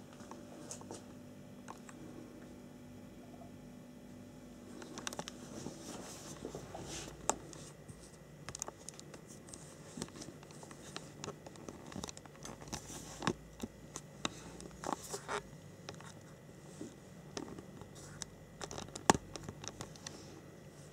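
Handling noise from a cardboard model-kit box being moved about and set upright: scattered scratching, rustling and light knocks. It starts about five seconds in after a faint steady hum, and the sharpest knock comes near the end.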